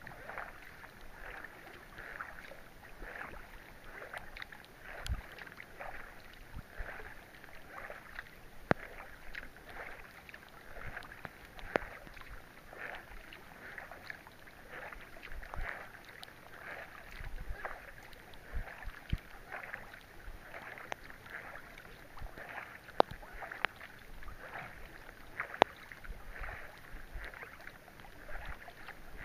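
Kayak paddle strokes swishing through the water in an even rhythm, with rain ticking on the wet deck of a Necky Manitou sea kayak and falling on the lake.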